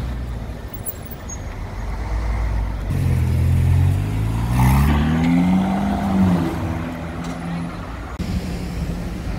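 Ferrari California's V8 accelerating past at close range, its engine note rising in pitch for about three seconds and then holding steady.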